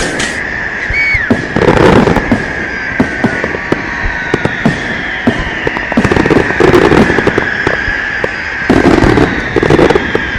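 New Year firecrackers and fireworks going off continuously, a rapid crackle of many small bangs. Denser clusters of loud bangs come about two seconds in and again in the second half. A steady high whistle runs underneath, and a short falling whistle sounds about a second in.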